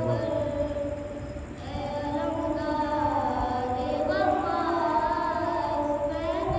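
A boy's voice chanting a noha, a Shia mourning lament, in long drawn-out, wavering sung phrases. The voice dips briefly about a second and a half in before the next phrase.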